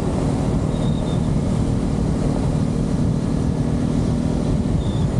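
Yamaha R15 V3's single-cylinder engine running at a steady cruising speed on the open road, under heavy wind rush on the microphone. The steady engine note drops back near the end.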